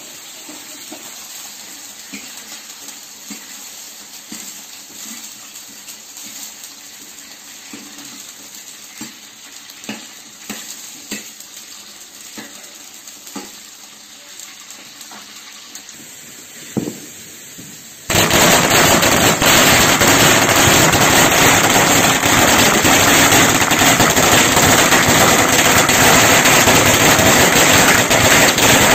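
Food frying in a wok, with stirring and scattered clicks of a utensil against the pan. About 18 seconds in it cuts to a string of firecrackers going off, a dense, continuous crackle of bangs, much louder than the frying.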